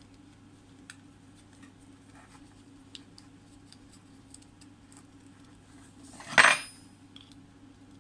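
Faint scattered clicks and taps of small metal handwork, then, about six seconds in, one loud brief metallic clatter with a ringing tail, over a steady low hum.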